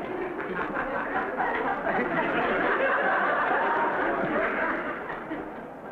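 Studio audience laughter, a dense wash of many people laughing together that dies away near the end.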